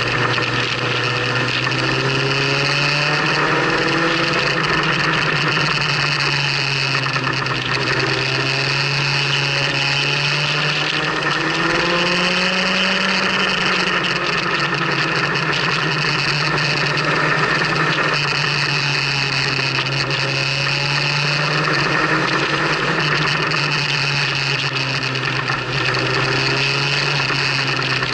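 Motorcycle engine running while riding at cruising speed, its note rising and falling gently through the bends and climbing briefly about twelve seconds in, under steady wind and road rush.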